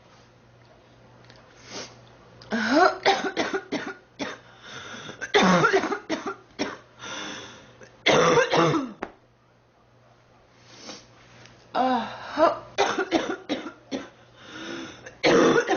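Girl coughing in repeated fits: about five bouts of several hacking coughs each, with short quiet breaks between. The coughing of someone who is sick.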